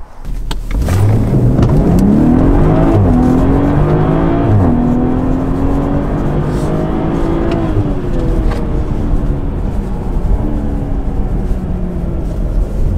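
BMW G20 M340i's turbocharged straight-six through a Fi valvetronic cat-back exhaust, valves open in Sport mode, accelerating hard from a launch. The note rises, drops at quick upshifts about three and four and a half seconds in, and climbs again. It then eases off and falls away over the second half.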